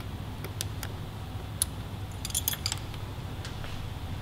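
Light metallic clinks and ticks of small metal parts being handled, most likely the removed throttle-cable bracket and its screws, with a quick cluster of clinks about halfway through.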